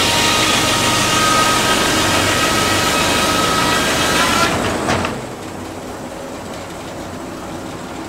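Antique circular sawmill blade cutting lengthwise through a pine log, a loud steady whine over the rush of the cut. About five seconds in the cutting noise stops abruptly, leaving the mill running more quietly.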